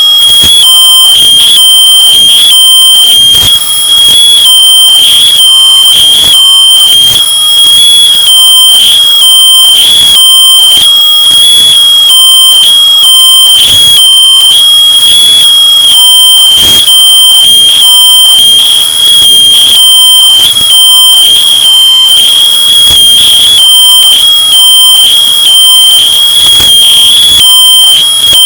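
Smoke alarm sounding a piercing high-pitched beep over and over in quick succession, boosted to full loudness so that it is harshly distorted.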